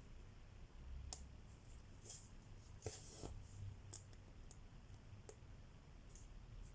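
Cross-stitching: faint, scattered clicks of a needle poking through the fabric, with a short swish of thread being drawn through about three seconds in.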